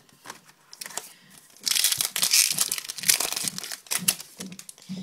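Plastic crinkling and rustling as trading cards are handled, loudest and densest for about two seconds in the middle, with scattered small clicks before and after.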